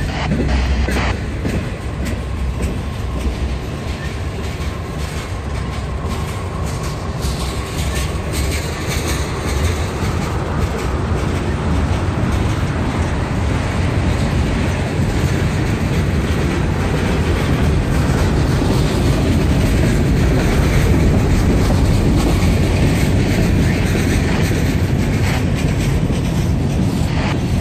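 Norfolk Southern freight train rolling past at track side: a steady rumble and clatter of steel wheels on the rails, growing a little louder after the middle.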